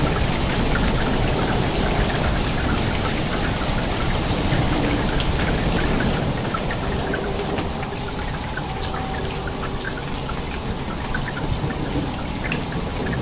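Heavy rain pouring down and splashing, a dense steady hiss peppered with many sharp individual drop hits, easing slightly about eight seconds in.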